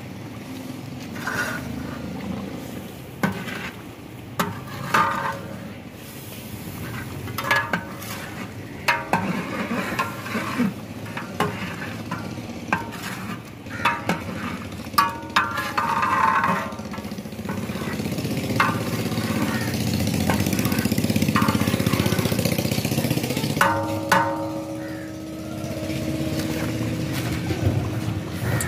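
A long metal ladle knocks and scrapes against a large metal deg while steaming korma is stirred. The knocks are sharp and ring briefly, over a steady rushing noise, and a steady hum comes in near the end.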